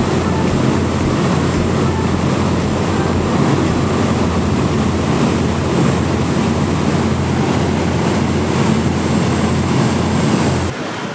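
A boat's engine running steadily, a low drone, under wind and water noise; the drone cuts off abruptly near the end.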